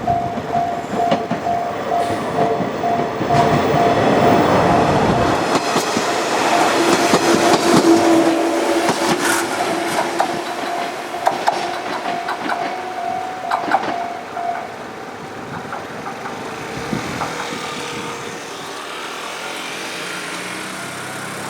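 JR 105 series electric train passing over a level crossing, its wheels clicking over the rail joints, loudest about 4 to 10 seconds in. The crossing's warning bell dings over and over, then stops about 15 seconds in as the train clears.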